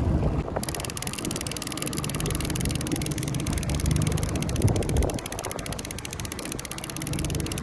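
Boat engine running with a fast, even beat that comes in about half a second in, over a steady low rumble of wind and water.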